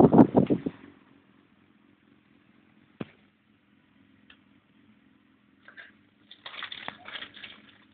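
Suzuki GSX-R1000 sport bike's inline-four engine running at low speed as a faint steady hum. Wind buffets the microphone loudly for the first second and again in gusts from about six to seven and a half seconds in, with a single sharp click about three seconds in.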